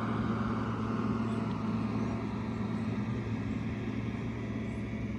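Heavy machinery, which the speaker takes for a digger, working, its diesel engine a steady low drone.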